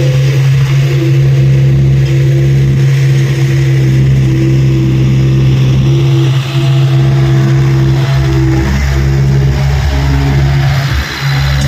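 Tata Hitachi EX70 excavator's diesel engine running steadily under work, with a higher tone coming and going over it. The sound dips briefly near the end.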